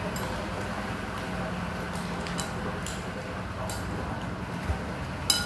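A metal spoon stirring shredded timun suri (cucumber melon) in a glass bowl, with faint clinks against the glass now and then and one sharper click near the end.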